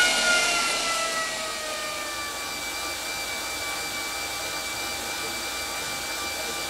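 Cyclus2 ergometer's chain drive and eddy-current brake whining, the pitch falling over the first two seconds as the rider eases off from a maximum-cadence sprint. It then holds a steady, quieter whine at easy cool-down pedalling.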